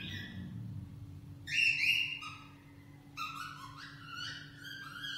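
Cockatiel whistling a tune of its own making: a fading held note, a loud pair of rising notes about a second and a half in, then a run of shorter notes.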